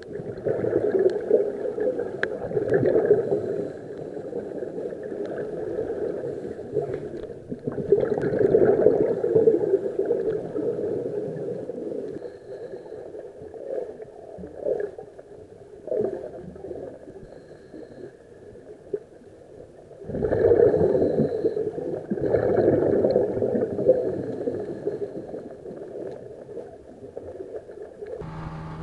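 Scuba regulator exhaust bubbles, heard underwater: muffled bubbling surges with each exhalation, coming every several seconds, with the loudest ones near the start, about eight seconds in, and twice after about twenty seconds.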